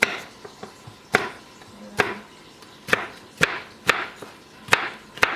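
Knife chopping seasoning vegetables on a cutting board: about eight separate sharp strikes at uneven spacing, the vegetables being diced.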